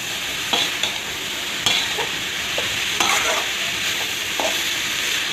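Soya beans and shredded vegetables frying in a metal kadai, sizzling steadily while a metal spatula stirs them. The spatula scrapes and knocks against the pan every second or so.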